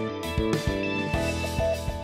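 Instrumental background music with a regular beat.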